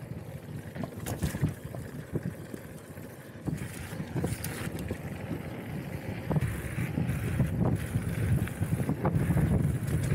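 Wind buffeting an action camera's microphone during a mountain bike ride, over tyre rumble and scattered knocks and rattles from the bike on rough ground. It gets louder about six seconds in.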